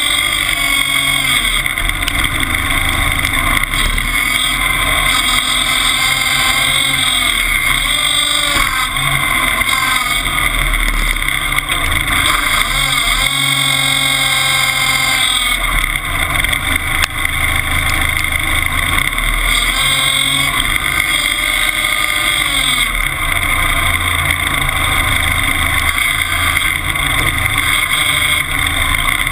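Timberjack 201 log skidder's engine running under way, heard up close: a loud, steady drone whose pitch rises and falls a few times as the throttle changes.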